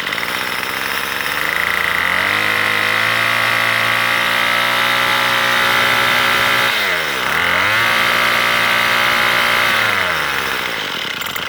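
Troy-Bilt string trimmer's two-stroke engine revving while it warms up. It rises to high revs, drops briefly toward idle about seven seconds in, revs up again, then eases off near the end. Freshly adjusted and not yet warm, it runs rough.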